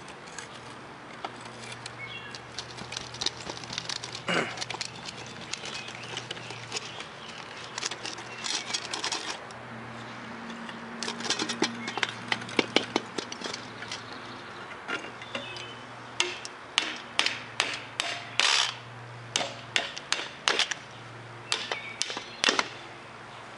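Steel tongs digging through loose casting sand in a metal bucket and gripping a fresh aluminum casting: scraping and crunching of sand with clinks of metal on metal, becoming a quick run of sharp clicks and knocks in the second half as the casting is lifted out.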